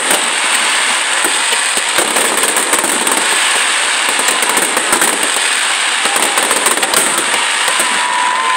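Fireworks display crackling continuously: a dense, steady stream of sharp pops and crackles from glittering crackle-effect shells bursting over the river.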